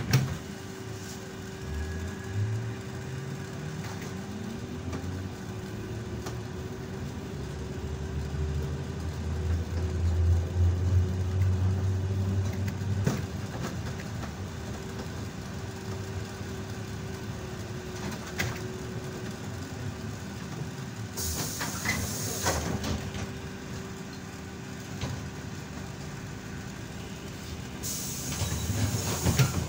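ZiU-682G trolleybus under way: the traction motor's whine rises as it gathers speed and later falls as it slows, over a steady running rumble. Two short hisses of compressed air from the pneumatics come about six seconds apart near the end.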